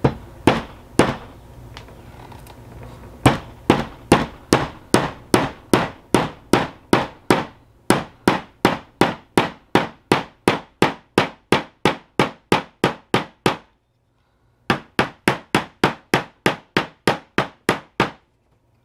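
Ball peen hammer tapping small nails into a wooden beehive frame: a long run of quick, even, sharp taps, about three a second, with a pause of about a second near the end.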